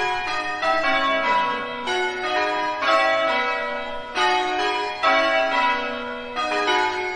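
Several church bells of different pitch ringing a peal. Strikes follow one another about twice a second, and each bell rings on under the next.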